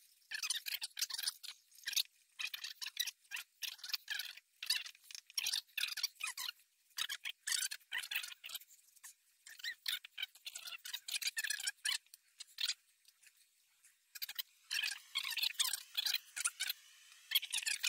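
Quick, irregular scratching and rasping of a small green pad scrubbing grime off small steel shotgun parts, with a short pause about two-thirds of the way through.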